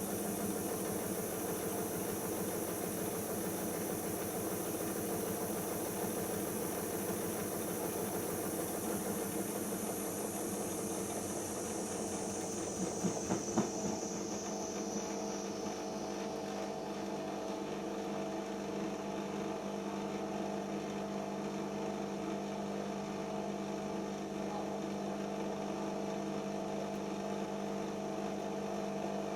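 Siemens iQ washing machine running in the final-spin stage of a cycle set to no spin: a steady hum throughout, with a high whine that falls in pitch and fades out about halfway through, and a few quick knocks around the same time.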